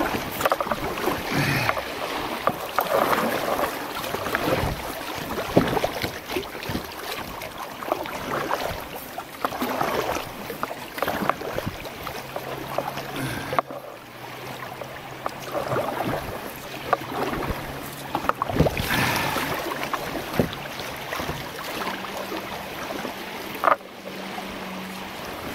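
Kayak paddle strokes splashing and dripping, in irregular swells every second or two, over moving creek water, with wind buffeting the microphone.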